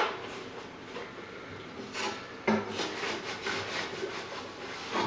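Cloth rag wiping water off plasma-cut aluminum pieces on a steel table top: a run of rough rubbing strokes, the loudest about two and a half seconds in.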